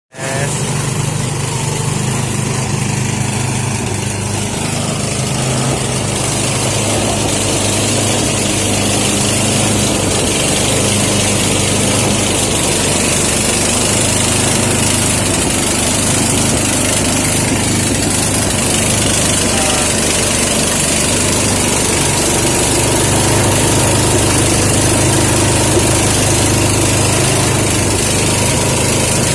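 Small engine of a power rice thresher running steadily, with a continuous hiss over it.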